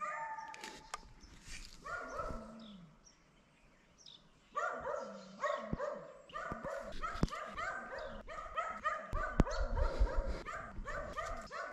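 Beagles barking: a few barks in the first two seconds, a short pause, then a fast, steady run of barks, about three a second, from about four and a half seconds in.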